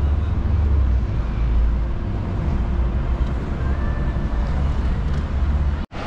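Steady low outdoor rumble, cutting off abruptly near the end.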